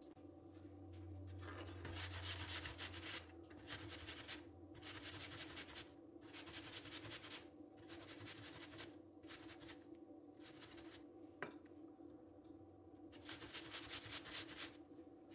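Peeled apples being grated on a stainless steel box grater: a run of rasping strokes, each about a second long, starting about two seconds in, with a short pause near the end before a final stroke.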